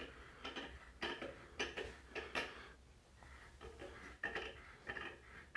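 Faint scattered clicks and light knocks of a hand handling the metal stand of an Andonstar ADSM302 microscope.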